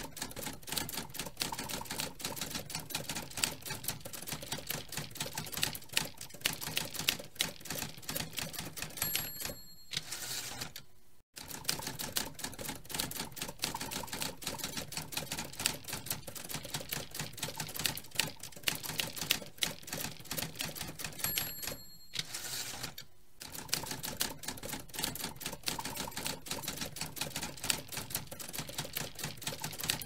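Manual typewriter being typed on: a fast, irregular clatter of typebars striking the platen, with a short high ring twice and a brief lull after each.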